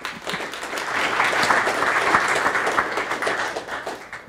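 Audience applauding: the clapping swells over the first second, holds, then dies away near the end.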